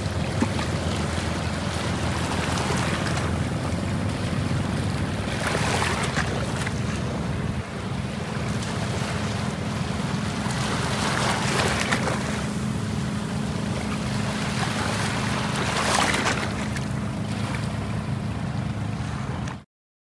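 Open sea waves washing and splashing, swelling in four surges over a steady low rumble; the sound cuts off suddenly near the end.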